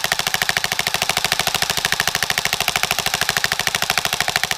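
Airsoft gun firing on full auto: a fast, even stream of shots, roughly fifteen a second, without a break.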